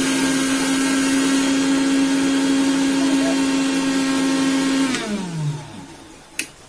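Small electric blender motor running at a steady high speed, grinding broken chocolate sandwich biscuits into powder. About five seconds in it is switched off and winds down with a falling pitch, followed by a short click near the end.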